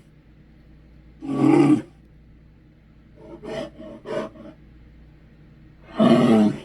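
St. Bernard dog vocalizing in deep, drawn-out calls: a loud one about a second in, three or four quieter short ones in the middle, and another loud one near the end.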